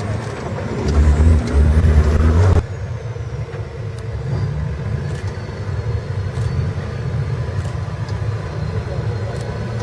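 Off-road trial 4x4 engine revving hard about a second in. The revving stops suddenly after a second and a half, leaving a lower, steady engine rumble.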